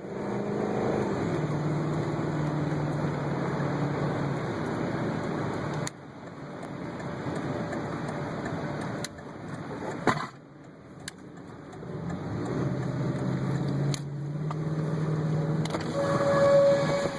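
Steady rushing storm noise of wind and rain with a vehicle running, under a low steady hum. It breaks off and resumes a few times. A steady higher tone starts near the end.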